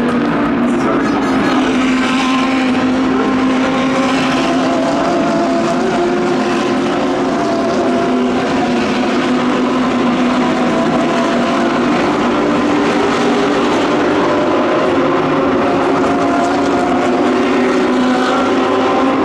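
A pack of GT3 race cars running together at steady revs, several engine notes overlapping and drifting slowly up in pitch.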